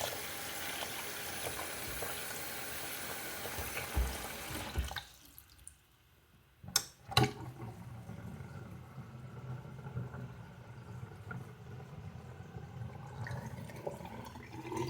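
Bathroom faucet running into the sink basin, shut off about five seconds in. About two seconds later there are two sharp clicks, then a faint low steady sound.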